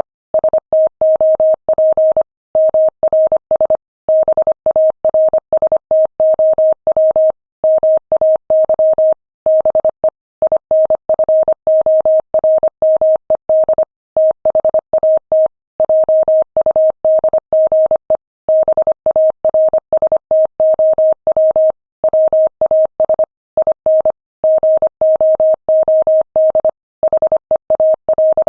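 Morse code sent at 25 words per minute: a single mid-pitched tone keyed rapidly on and off in dots and dashes, with short silent gaps between characters and words.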